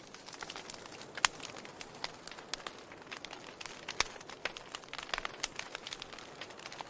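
Wood fire burning, with irregular sharp crackles and pops over a steady hiss; the loudest pops come about a second in and at about four seconds.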